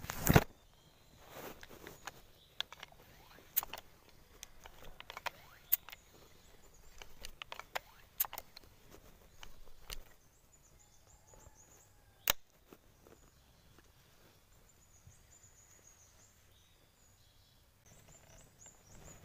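Scattered sharp clicks and knocks from handling a fish spear gun, the loudest right at the start and another sharp one about twelve seconds in. Near the end a bird chirps repeatedly.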